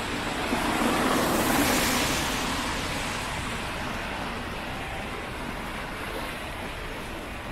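Tyres hissing on wet pavement over steady road and wind noise, with a louder swish that swells and fades between about one and three seconds in, as of a vehicle passing on the wet road.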